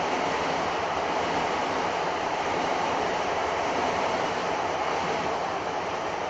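Steady running noise of a Joban Line commuter train, heard from inside the carriage: an even rumble and rush from the wheels and running gear.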